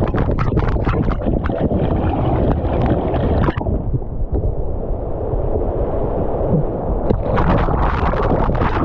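Turbulent floodwater churning and splashing below a low-head dam, heard loud and close with the microphone at water level and dipping under the surface. About three and a half seconds in, the splashing hiss drops away for a few seconds, leaving a dull rumble, then comes back.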